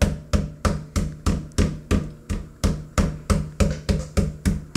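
Metal meat-tenderizing mallet pounding pieces of alligator meat under plastic wrap on a plastic cutting board, a steady run of blows about three a second, flattening the meat thin.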